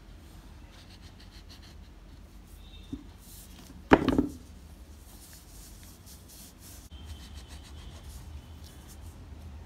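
A glue stick rubbed over kraft paper, with the dry scraping and crinkling of paper being pressed and folded by gloved hands. A single sharp knock about four seconds in, the loudest sound, like something set down or tapped on the table.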